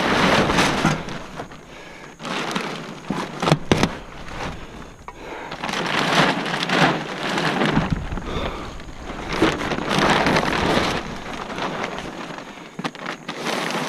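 Plastic tarp rustling and crinkling in surges as it is pulled back off a sawmill, with a couple of sharp clicks about three and a half seconds in.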